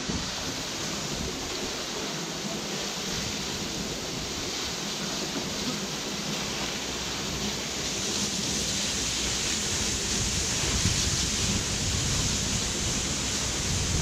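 Waterfall plunging from a cliff into a pool: a steady, even rushing of falling water, growing a little louder in the second half.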